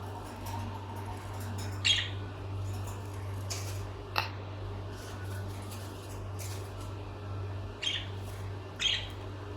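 Pet lovebirds giving a few short, sharp squawking chirps, four in all, spaced unevenly over a steady low hum.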